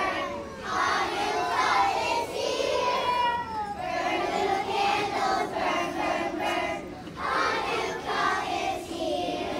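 A kindergarten class of young children singing together in unison, phrase after phrase with short breaths between.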